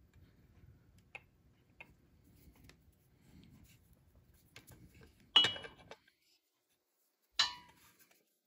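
Metal tooling being set up on a crankshaft bearing sleeve: light handling clicks, then two sharp metallic clinks with a short ring, about two seconds apart, as an aluminium bearing driver and a steel socket are set in place under the press ram.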